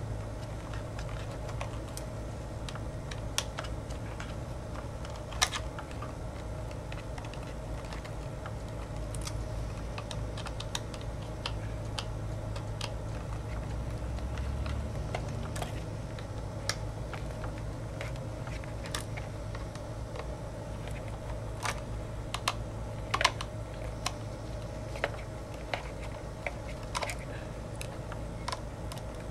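Scattered small clicks and taps as a tiny Phillips screwdriver works the side screws holding a MacBook's top case assembly, with the screws and laptop being handled, over a steady low hum.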